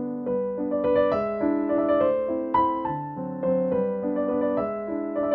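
Background music: a piano melody playing over sustained chords, with notes changing every half second or so.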